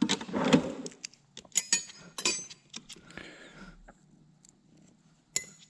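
Metal hand tools and small metal parts clinking and clattering: a string of irregular clicks and knocks, some with a short metallic ring, as tools are handled.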